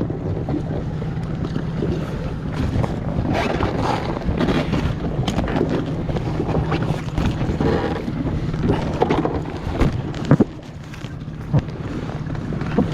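A small rescue boat's engine idling steadily while wind buffets the microphone, with scattered knocks and one sharp knock about ten seconds in.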